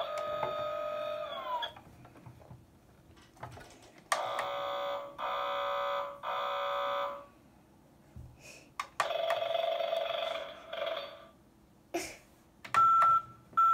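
Electronic sound effects from a Paw Patrol Ultimate Construction Truck toy's speaker, set off by pressing the button on its cab: several short tonal jingles, then steady high beeps near the end.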